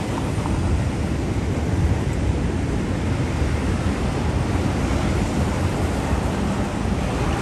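Steady city street ambience: a low, even rumble of traffic and background noise with no distinct single event.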